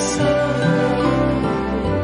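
Slow, gentle background music of held notes with a few slides in pitch.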